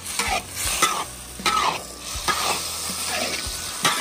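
A spatula scraping and stirring noodles in a wok, with about six scraping strokes, some of them giving short falling squeaks.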